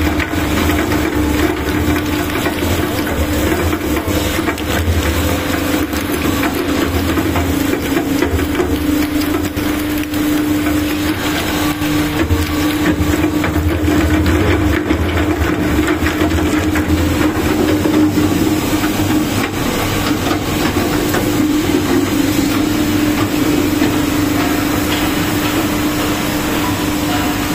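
Genox V Series single-shaft shredder running, its rotor cutting cylindrical battery cells: a steady hum under a continual crackle of metal casings being cut.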